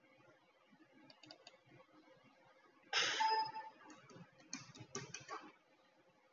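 Computer keyboard typing: a few keystrokes about a second in, a louder burst of noise around three seconds in, then a quick run of keystrokes.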